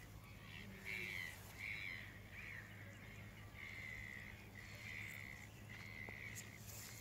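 Faint bird calls, a string of short harsh calls repeating every half second to a second.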